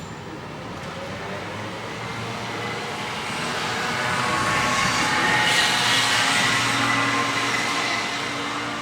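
A vehicle passing by, its noise swelling slowly to a peak about five to six seconds in and then fading away.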